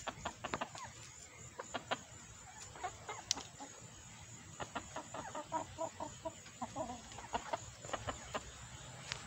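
A flock of backyard chickens clucking in short, scattered calls that come thickest in the middle.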